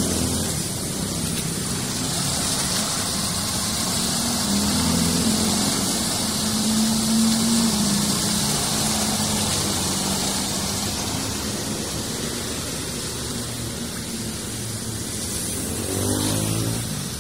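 Steady rush of floodwater draining into a roadside culvert. A vehicle engine hums underneath, swelling through the middle, and a vehicle sweeps past near the end.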